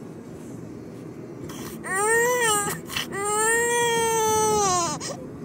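Overtired infant crying: after a quieter start, a short wail about two seconds in, then a long, held wail that falls in pitch as it ends.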